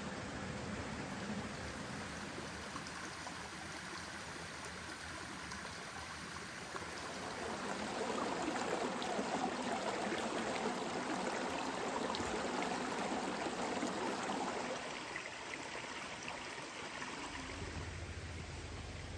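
Small forest creek running and splashing over rocks in a steady rush, louder for several seconds in the middle where the water spills over a small rock cascade.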